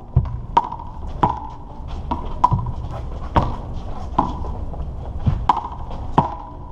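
Small rubber handball smacking repeatedly against the concrete wall and court, each hit a sharp crack with a short ringing ping, about one or two a second, over a steady low rumble.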